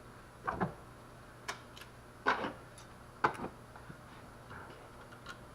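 A few scattered, irregular metallic clicks and light knocks, loudest a little past two and three seconds in: a nut and stud being handled and fitted by hand on a car engine.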